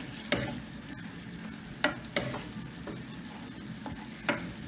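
Tomato sauce sizzling in a pan as it is stirred, with a few sharp knocks of the spoon against the pan.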